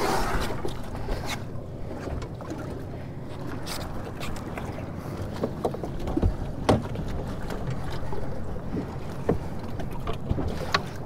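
Steady low rumble of a boat on the water, with wind on the microphone. Over it come scattered light knocks and clicks from gear being handled on the fiberglass deck, the sharpest about two-thirds of the way through.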